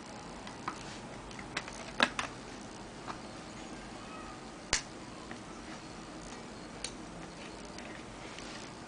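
Sharp plastic clicks from the push-pin fasteners of a boxed Intel LGA 775 heatsink-fan being pressed down into the motherboard, about eight scattered clicks, the loudest about two seconds in and another just before the middle, over faint room hiss.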